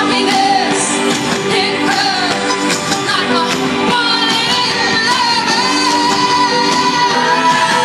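Live rock band playing with a woman singing lead over it, heard from the audience through a large festival sound system. About halfway through she holds one long sung note.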